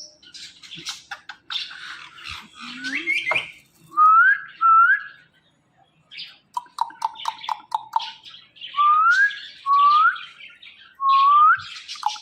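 Parrot whistling and chattering: short rising whistles, two about four seconds in and three more near the end. In between come a quick run of repeated notes and scattered squawky chirps.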